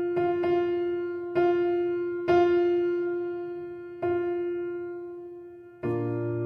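Background music: soft electric-piano notes struck one at a time, each fading out, mostly on one repeated pitch, with a fuller chord coming in near the end.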